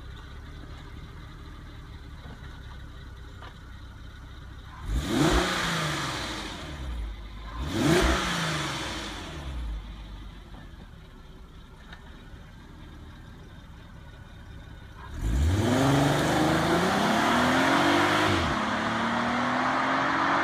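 Volkswagen Passat CC's 3.6-litre VR6 engine through its stock exhaust, idling and then revved in two short blips about five and eight seconds in. About fifteen seconds in it accelerates away, its note rising steadily with one gear change near the end.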